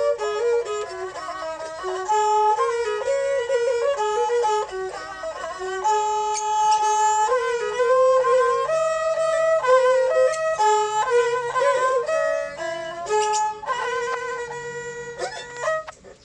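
Thai saw fiddles (two-string bowed fiddles) playing a mahori melody in kantruem style, with held notes joined by sliding pitch changes.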